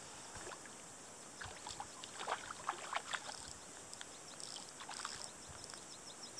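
Short, irregular splashes and sloshing of water from a hooked fish being played on a fly rod, over a steady background hiss.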